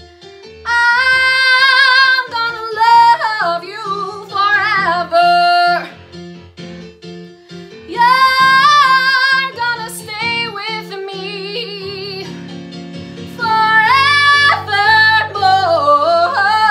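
A young woman singing solo, belting long held notes with vibrato and quick runs in several phrases with short breaks between them, over an instrumental backing track with keyboard and bass.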